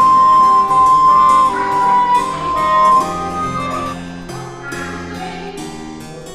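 Instrumental background music: a held melody line over lower accompanying notes, growing quieter after about three seconds.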